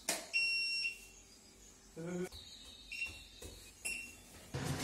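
Short high electronic beeps: one of about half a second near the start, then shorter ones around three and four seconds in. A louder, even rush of noise comes in near the end.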